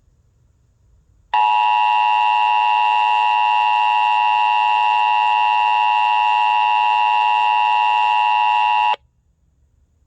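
Emergency Alert System two-tone attention signal from an EASyPLUS encoder, with no SAME header bursts before it: a loud, steady dual tone that starts sharply about a second in and cuts off abruptly about seven and a half seconds later. It is the alert tone that opens an EAS test message.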